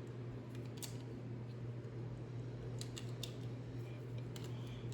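A handful of light, sharp clicks as small plastic pieces are handled and placed, two or three close together about three seconds in and again near the end, over a steady low hum.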